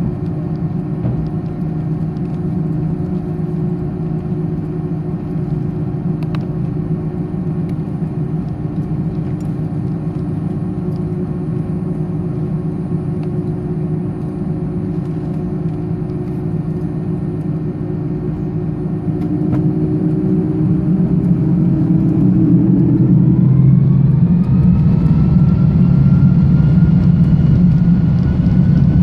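Twin turbofan engines of an Airbus A310, heard from inside the cabin: a steady hum and rumble at low thrust, then about twenty seconds in they spool up for takeoff. A whine climbs in pitch and levels off as the noise grows louder.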